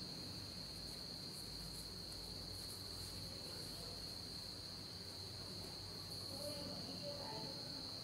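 Crickets chirping in a steady, unbroken high trill.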